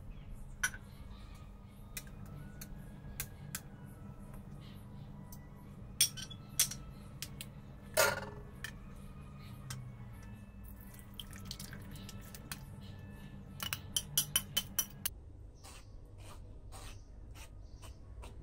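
Metal potato masher and spoon clinking, tapping and scraping against a ceramic bowl and a mesh strainer as soft fruit pulp is mashed and pressed through. There are scattered clicks, a few louder knocks about a third of the way in, and a quick run of about six taps about three-quarters of the way through.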